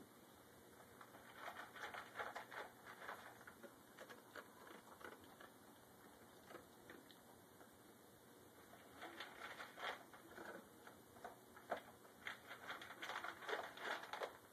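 German shepherd chewing and crunching its food: quick runs of small crackly clicks in two spells, a short one early and a longer one from about the middle on.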